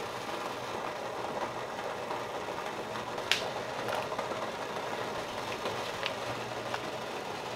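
Water at a rolling boil in a stainless steel pot, a steady bubbling. A few light clicks and knocks as ingredients go in, the sharpest about three seconds in.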